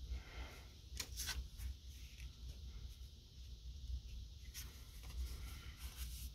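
Cardstock being slid, set down and lifted on a cutting mat: faint paper rustles and light taps, a few sharper ones about a second in and again near the end, over a steady low hum.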